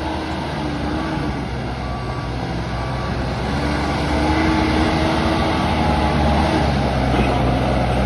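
ACE AX 124 backhoe loader's 74 hp diesel engine running under hydraulic load while the machine holds its front wheels off the ground, getting louder about halfway through.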